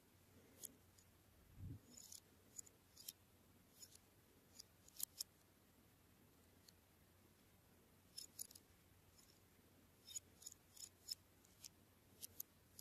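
Faint, scattered sharp clicks of a small plastic toy being handled and turned in the fingers, coming in small clusters every couple of seconds, with a soft low thump about two seconds in.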